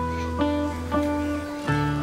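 Background music with plucked guitar notes over held bass notes.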